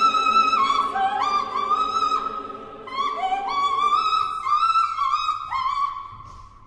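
Coloratura soprano singing a high, florid operatic passage in short phrases of held top notes and quick upward slides and runs, over soft sustained orchestral and choral chords that thin out about halfway through.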